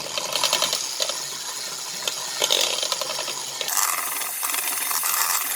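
Muffin batter being beaten in a bowl: a steady, dense metallic rattle with fine rapid ticks, whose texture changes about two-thirds of the way through as flour goes in.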